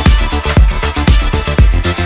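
Electronic dance music beat with deep kick drums about twice a second, cymbal hits and a steady bassline, with no vocals.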